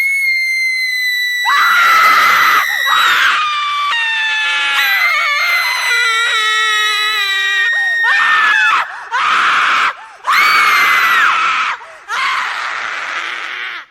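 A woman screaming in horror: a run of long, high-pitched screams, some overlapping, with short breaks between the last few.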